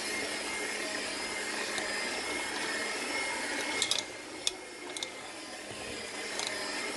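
Electric hand mixer with dough hooks running steadily through stiff, crumbly flour-cookie dough, its motor giving a held whine. A few sharp clicks come in the second half.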